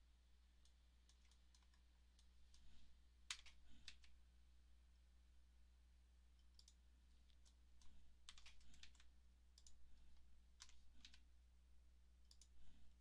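Faint, scattered clicks of a computer keyboard and mouse, some in quick clusters, over a low steady hum.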